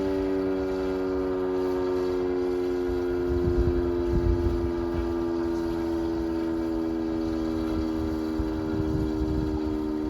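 Outdoor warning siren sounding a steady two-note chord, its pitch sagging slightly as it begins to wind down. Wind gusts buffet the microphone.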